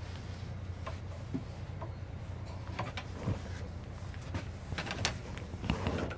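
O-Train diesel railcar's steady low rumble, with scattered clicks and knocks.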